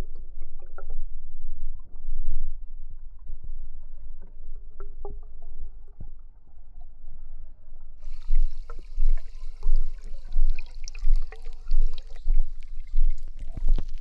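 Bubbles rising in a hot pot, heard underwater through a hydrophone: a steady low rumble with soft gurgling. About eight seconds in, a brighter sound joins, pulsing about twice a second.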